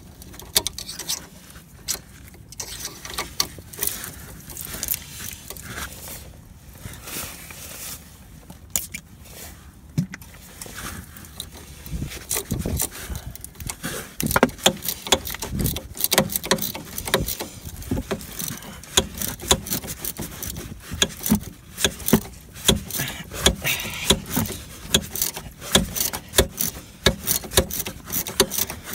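Hand tools working the rusted 15 mm anti-roll bar link nut while its stud is counter-held so it won't spin: a string of metal clicks and scrapes. The clicks come quicker and louder from about halfway through.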